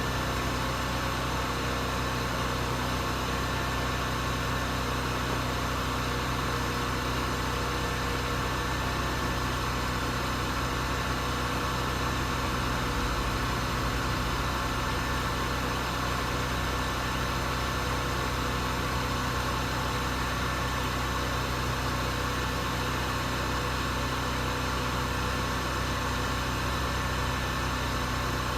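An engine running steadily with a constant low hum and a few fixed tones, unchanging throughout.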